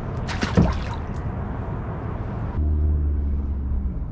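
A short splash with dripping water about half a second in. Later a low steady hum lasts a little over a second.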